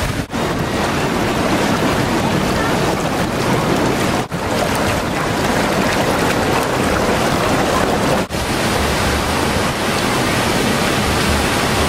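Steady loud rush of splashing, churning water from a water slide and a bubbling whirlpool, mixed with wind on the microphone. The rush breaks off for an instant roughly every four seconds.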